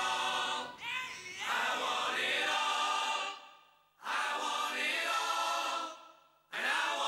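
Voices singing together like a choir, in three phrases with short breaks between them.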